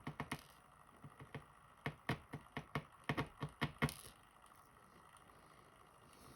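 An irregular run of about a dozen light, sharp clicks and taps over the first four seconds, then they stop: small lock pins and tools being handled and tapped as a pin-tumbler lock is taken apart.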